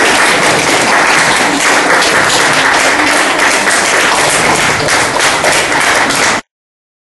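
Audience applauding, a dense steady clapping that cuts off abruptly near the end.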